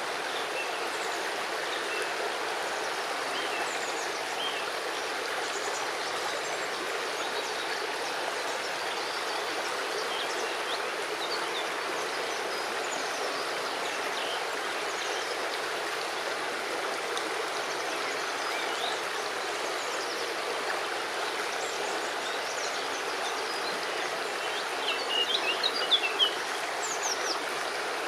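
River water rushing steadily over stones in the riverbed. Near the end comes a short, louder flurry of high chirps.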